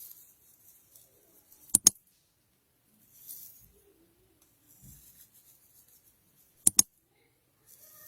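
Two sharp double clicks about five seconds apart, each two quick strokes, with faint rustling between them.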